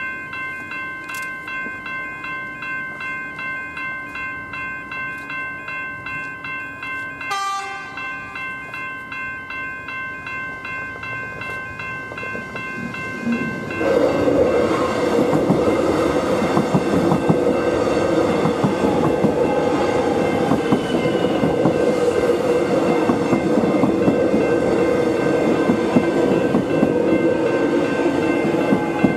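Level crossing bells (General Signals E-Bells) ringing steadily, about two strokes a second. A short sharp sound comes about 7 s in. About 14 s in a suburban train arrives and runs through the crossing, its louder running noise covering the bells for the rest of the time.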